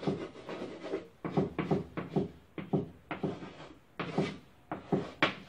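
Chalk writing on a blackboard: a quick, irregular series of short taps and scrapes as the chalk stick strikes and drags across the board.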